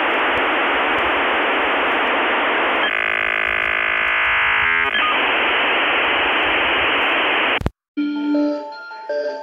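Steady hiss of radio-like static, with a buzzing stretch of about two seconds in the middle. Near the end it cuts off suddenly, and music with clear notes starts.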